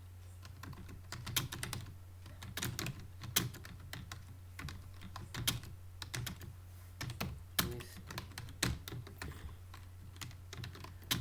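Computer keyboard typing: fast, irregular key clicks of uneven strength, over a steady low hum.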